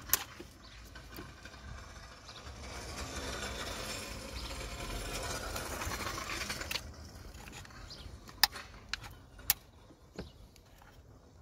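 A plastic trim tool scraping and levering against the plastic crankcase breather valve cover of a BMW N47 diesel engine, followed by a few sharp clicks, two of them loud, as the cover's plastic retaining clips snap.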